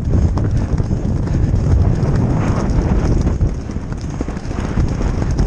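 A retired racehorse galloping on turf, heard from the saddle: quick hoofbeats over a heavy low rumble.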